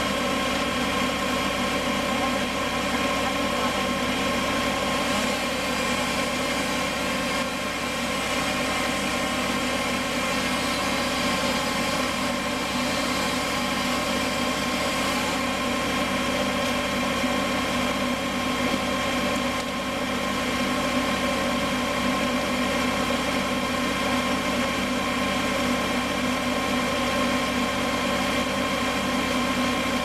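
An engine running at a steady, unchanging idle, with no revving.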